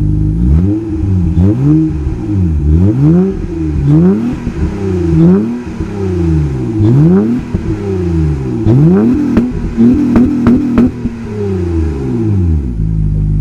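2006 Honda Accord's 3.0 L V6, with its resonator and muffler deleted, revved in a string of quick blips, about one a second, each rising and falling back, then settling to a steady idle near the end.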